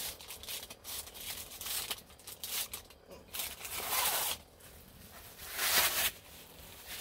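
Aluminium foil crinkling and rustling in irregular bursts as a foil-backed sheet of pizza dough is lifted and moved, with more crinkling of a plastic package about six seconds in.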